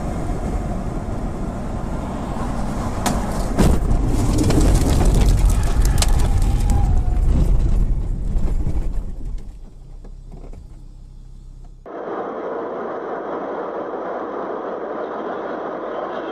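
Road noise inside a car, then a loud rumbling with sharp knocks about three to four seconds in as the car runs off the tarmac onto a ploughed field, dying down after about nine seconds. After a sudden cut, the steady road noise of another car driving along a highway.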